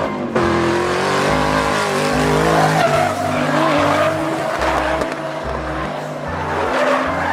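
Race-car sound effect: an engine running hard, with tyres squealing and skidding.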